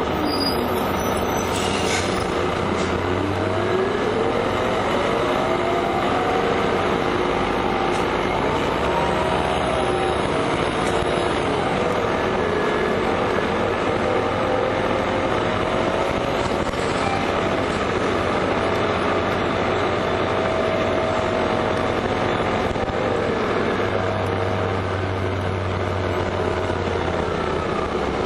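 Orion V (05.501) city transit bus running under way. Its engine and drivetrain whine rises in pitch as it accelerates a few seconds in and again around ten seconds, holds steady, then drops away near the end.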